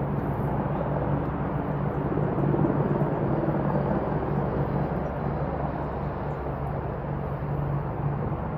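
A steady low mechanical hum from an unseen motor under an even outdoor background noise, unchanging throughout.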